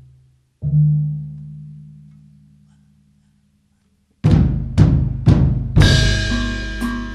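Opening of a jaranan dangdut music track: a single deep booming drum strike that dies away over about three seconds, a brief silence, then heavy drum hits about twice a second, joined near the end by ringing pitched notes.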